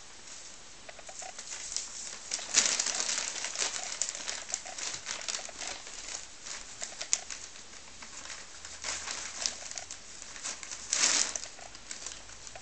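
Clear plastic hay bag crinkling and dry hay rustling as a rabbit rummages inside it, pulling at the hay while eating. The crackling comes in irregular bursts, loudest about two and a half seconds in and again near the end.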